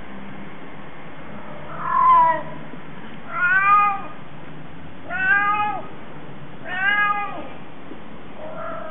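Cat wailing to attract a mate: a run of drawn-out yowls, each about half a second to a second long and rising then falling in pitch, roughly a second and a half apart. A fainter one comes near the end.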